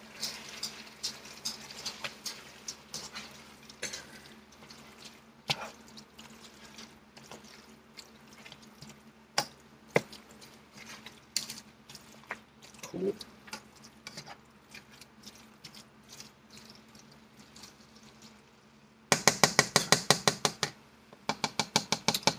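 Spatula stirring and scraping food around a frying pan, with light scattered scrapes and clicks. Near the end comes a quick, even run of sharper scraping strokes, about seven a second.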